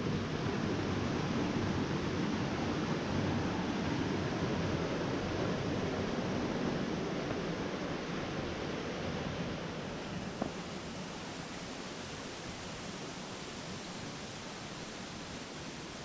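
Steady rushing of flowing stream water, slowly fading in the second half.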